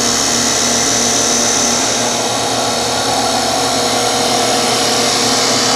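Auto-Motion Motioncat CNC wood lathe cutting a spinning baseball bat blank: a steady, dense cutting noise with a constant whine.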